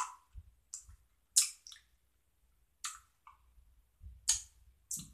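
Wet mouth clicks and lip smacks from someone chewing a chewy sour gummy candy: short sharp clicks at irregular intervals, roughly one or two a second.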